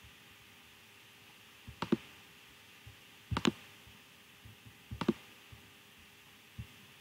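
Computer mouse clicking: three quick pairs of sharp clicks about a second and a half apart, then a single fainter click near the end.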